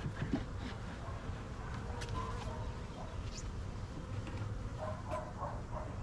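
Honeybees humming over an open hive box, with a few sharp clicks. Short, higher-pitched animal whines come about two seconds in and again near the end.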